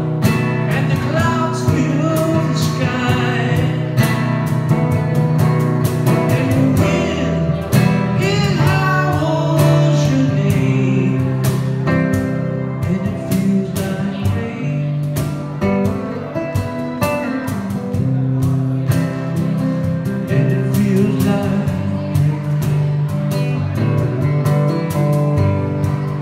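A man singing while strumming an acoustic guitar, his voice coming in phrases over the steady strummed chords.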